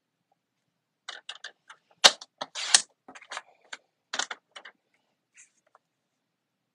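Paper trimmer being worked as paper is lined up for a cut: a quick run of light plastic clicks and taps, with two louder snaps about two seconds in.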